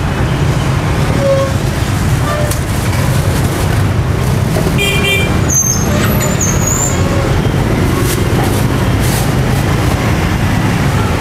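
Steady low rumble of busy street traffic, with a short beep about five seconds in.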